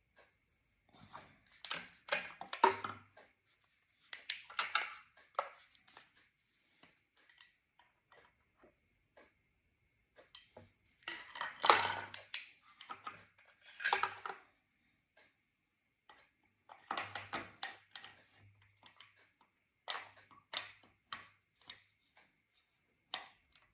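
Irregular metal clicks and clatter of a distributor being handled: lifted out of the engine, its shaft turned by hand, and worked back down into the camshaft's helical drive gear. The clatter comes in short bunches with quiet gaps, loudest about halfway through.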